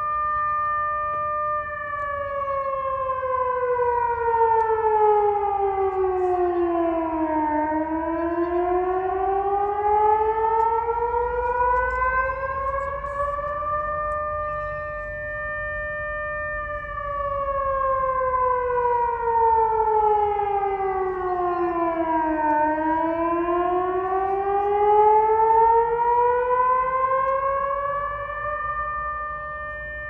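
Newly installed outdoor civil-defence warning siren sounding a slow wail. Its held tone slides down about an octave over some six seconds and climbs back, twice, holding steady at the top in between.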